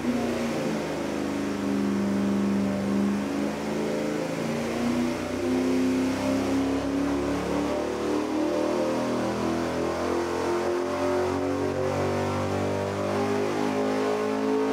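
Carbureted V8 on an engine dyno making a wide-open-throttle pull, its note climbing steadily from about 3,000 to 6,000 rpm. It is breathing through a race double-pumper carburetor topped with an air filter.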